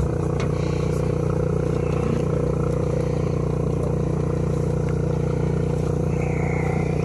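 Steady motor hum of the aeration system on a live-fish transport tank, running to feed oxygen into the water.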